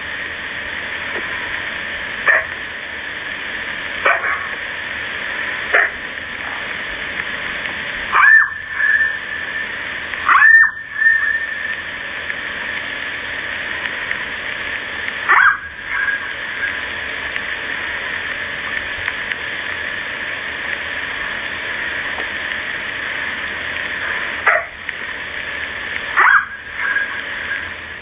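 Fox barking: about ten short, sharp barks, spaced a couple of seconds apart at first and then with longer gaps, over a steady background hiss.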